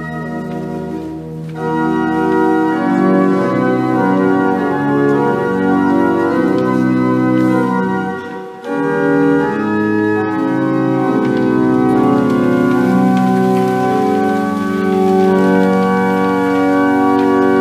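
Church pipe organ playing full held chords of a psalm tune, growing louder about two seconds in, with a brief break between phrases about eight and a half seconds in.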